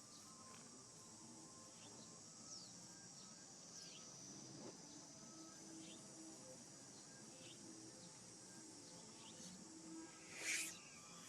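Insects, crickets or cicadas, keeping up a faint steady high-pitched chorus, with a short louder burst of noise about ten seconds in.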